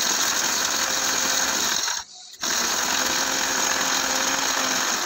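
Electric spice grinder's motor running as it grinds hard whole spices (nutmeg, mace and green cardamom) in its jar. It stops for a moment about two seconds in, then starts again.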